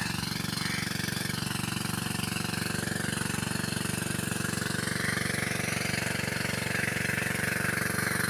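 Engine running steadily at constant speed with an even beat. A hiss like water pouring into the irrigated field grows louder about five seconds in.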